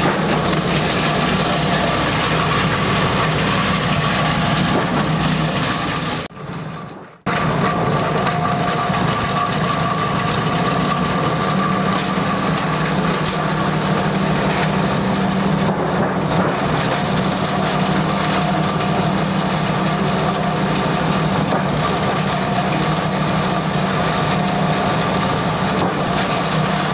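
Plastic bottle shredder driven by a small engine, running steadily while plastic bottles are chopped into flakes, with crushing and cracking of plastic over the engine's steady hum. The sound dips and cuts out briefly about six seconds in, then resumes.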